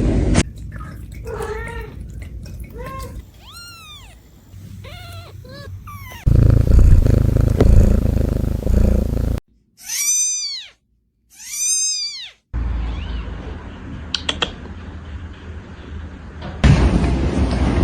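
Kittens meowing: a string of short, thin meows in the first few seconds, then two loud, drawn-out meows rising and falling in pitch, about ten and twelve seconds in. A low rumbling noise comes and goes between them.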